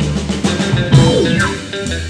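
Background music of guitar with bass guitar and drums, with a falling glide about a second in.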